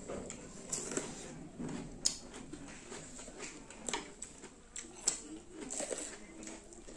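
Raw cucumber being bitten and chewed: a few sharp, crisp crunches spaced a second or so apart over quieter wet chewing.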